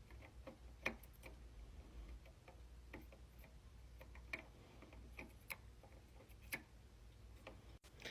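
Faint, irregular small clicks and taps from a CPU being handled and lined up over its motherboard socket, with a few sharper clicks among them.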